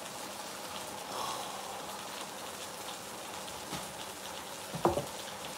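Chicken pieces frying in a skillet: a steady sizzling hiss with small crackles, and one brief sharp sound near the end.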